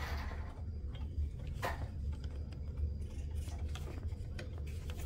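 Radio-controlled truck driving slowly across a laminate floor: a low steady hum with faint scattered ticks, and one short rush of noise about a second and a half in.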